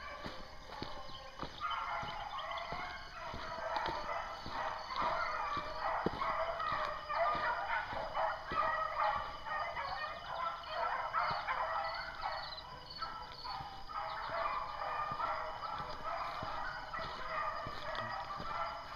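A pack of beagles baying in full cry while running a rabbit, many voices overlapping, swelling about a second and a half in.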